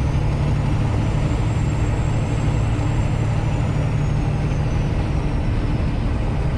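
Semi truck cruising on the highway, heard from inside the cab: a steady low diesel engine drone with road noise.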